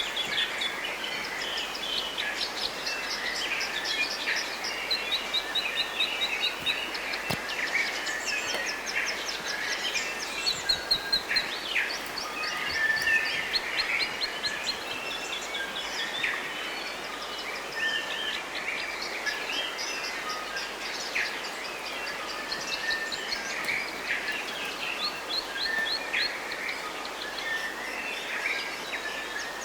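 Many birds singing at once, a busy mix of chirps, whistles and rapid trills, over a steady background hiss.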